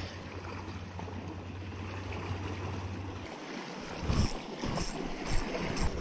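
Wind and sea washing against a rocky shore, with a low rumble of wind on the microphone that drops away about halfway through, then a few short knocks near the end.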